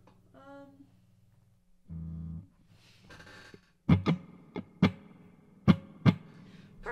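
Kramer Pacer electric guitar on its neck pickup through a Harmony H605 amp: about six short, sharp strums in the second half, each trailing off into the amp's spring reverb, which has a long dwell. Steady amp hum underneath, with a brief low thump about two seconds in.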